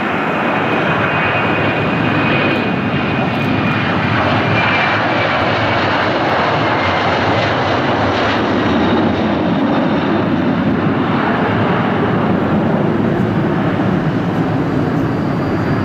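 Boeing 767-300's twin jet engines at takeoff thrust, loud and steady as the airliner rolls, lifts off and climbs away. A faint whine sinks slightly in pitch in the first few seconds.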